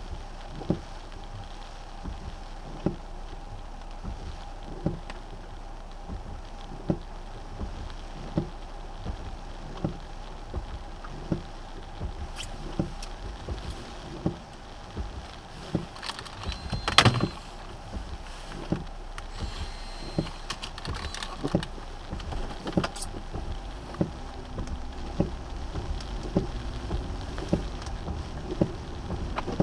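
Inside a car in the rain: a steady cabin hum and rain patter, with a soft tick about once a second and one louder knock a little past halfway.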